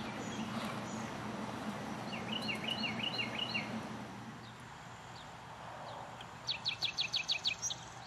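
Wild songbirds singing over a steady low background hum. One bird repeats a short slurred note about five times a couple of seconds in, and near the end another gives a quick run of about eight sharp, loud notes.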